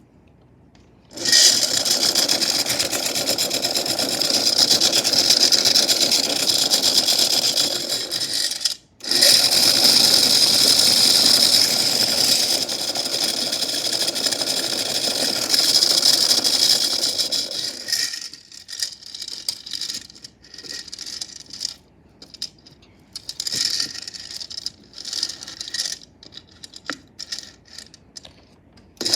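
Toy washing machine's small motor running with chains rattling and clinking inside its drum. It starts about a second in, stops briefly near nine seconds, then after about eighteen seconds breaks into irregular bursts of rattling.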